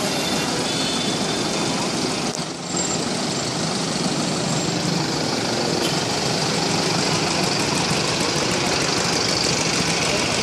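Street traffic noise: motor vehicle engines running and idling, a steady dense din that briefly drops about two and a half seconds in.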